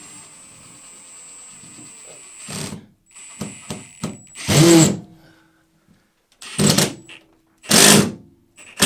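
Power drill drilling up into the ceiling, bit into a wooden joist: it runs steadily with a high whine for a couple of seconds, then goes in four short loud bursts.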